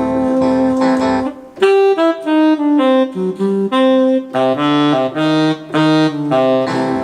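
Keyboard playing a saxophone voice as the lead melody over an organ backing and bass. A long held note, a brief break, then a run of short separate notes, with the bass line coming in more strongly a little after halfway.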